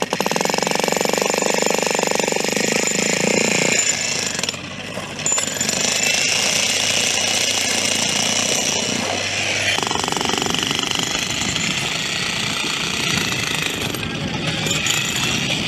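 Jackhammer hammering continuously on stone, its sound shifting in tone about four seconds in and again near ten seconds.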